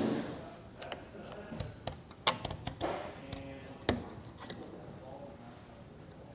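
Scattered light clicks and taps of rubber and plastic as the bike rack's anti-sway strap is wiggled and pulled free around the tire; the sharpest taps come about two and four seconds in.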